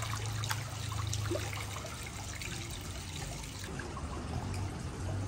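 Hot-spring foot bath water trickling and lapping, with scattered small splashes and drips over a steady low rumble.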